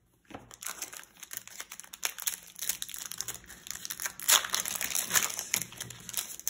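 Trading card booster pack being handled: a dense, irregular crinkling of the foil wrapper, loudest about four seconds in, as the pack is opened and the cards taken out.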